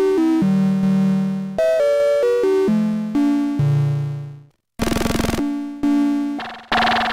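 Homemade analog synthesizer prototype playing a run of separate pitched notes, each fading away. About five seconds in comes a burst of noise. Near the end the tone turns brighter and more resonant as its knobs are turned.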